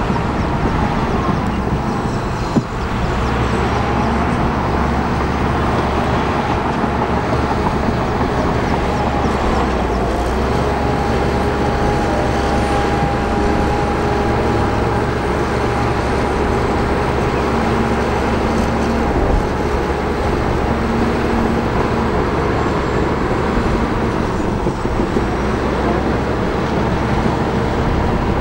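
Crawler bulldozer's diesel engine running steadily, with a thin whine joining about ten seconds in.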